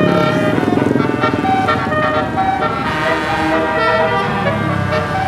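Bus telolet basuri, a multi-trumpet musical air horn, playing a melody: a quick run of pitched horn notes that change several times a second without a pause.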